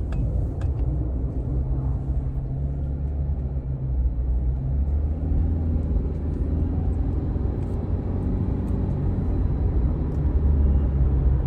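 Cabin sound of a 2018 Subaru Crosstrek driving on the road: a steady low rumble of tyres and engine, growing a little louder near the end as the car speeds up. No wheel-bearing hum stands out, a sign that the newly replaced rear wheel bearing is quiet.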